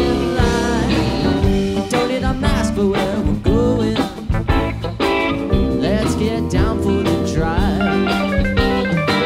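Live rock band playing: electric guitar, keyboards and drums together.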